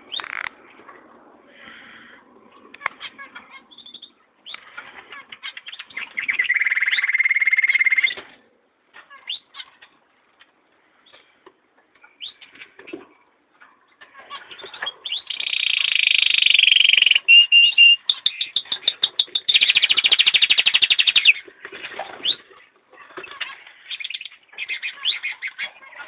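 Canaries singing: runs of chirps and rapid trills, loudest in a stretch about six to eight seconds in and again from about fifteen to twenty-one seconds in.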